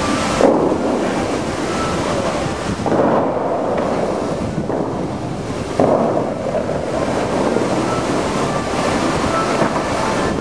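Bellagio fountain water jets rushing and spraying, with the falling water splashing back into the lake. The noise surges suddenly three times, about three seconds apart, as new volleys of jets fire.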